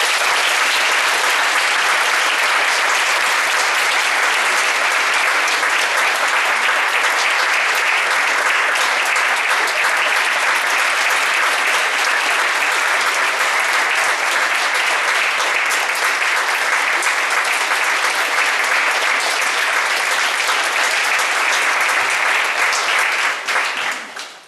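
Large audience clapping, loud and steady, dying away near the end.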